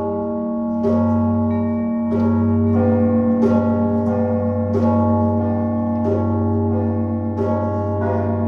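Russian Orthodox church bells rung by hand from ropes: many bells sound together, a deep steady hum from the largest under the ringing of smaller bells. A fresh strike comes roughly once a second.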